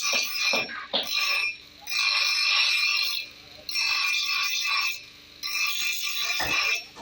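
Metal scraping on steel in repeated rasping strokes, about four strokes of one to two seconds each, with a couple of sharp knocks in between.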